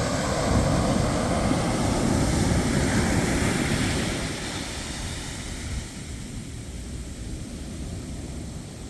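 Ocean surf: a wave washing in loudly, then easing off as it draws back over the second half.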